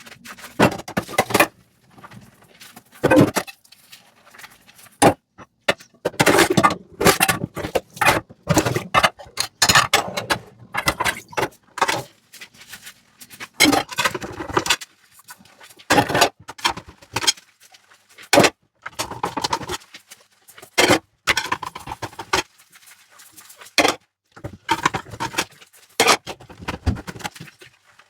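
Dishes and cutlery clinking and clattering in a sink as they are handled and washed, in irregular bursts of sharp knocks with short stretches of scrubbing or water noise between.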